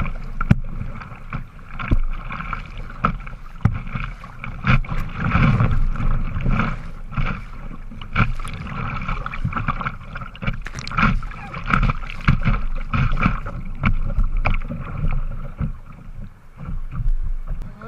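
Sea water splashing and rushing around a plastic kayak's bow as it is paddled through surf, with frequent sharp splashes and knocks.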